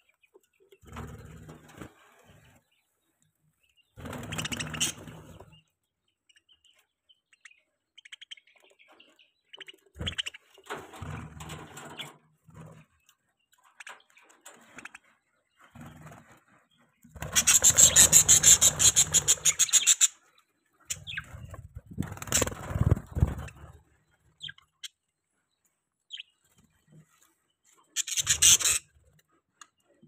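A flock of budgerigars chirping and chattering in irregular bursts, the loudest a rapid, dense chatter lasting about three seconds past the middle.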